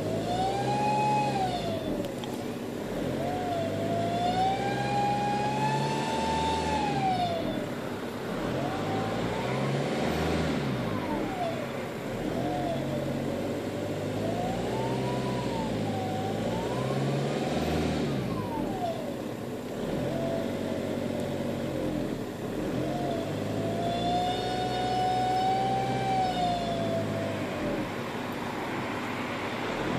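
1.9 TDI (ARL) four-cylinder turbodiesel engine revved up and down several times, with a loud whine that rises and falls in pitch with the revs; the owner suspects turbo failure.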